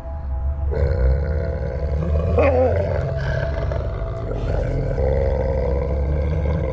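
Deep, rumbling growling from large Lycan Shepherd dogs squaring off face to face, swelling about a second in with a sharper snarl a little later. It is a warning growl: an adult male correcting a younger dog over food.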